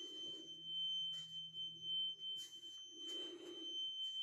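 Small carbon monoxide alarm giving a constant, unbroken high-pitched tone ("eeeee"), with a few soft rustles of movement.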